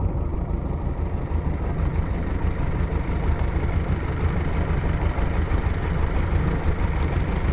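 Long-tail boat engine running steadily, a low continuous drone.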